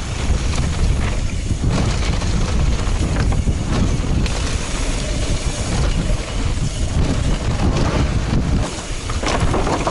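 Wind buffeting the action camera's microphone during a fast mountain-bike descent, over the steady rumble of tyres on loose, dry dirt, with frequent small knocks and rattles from the bike over the rough trail.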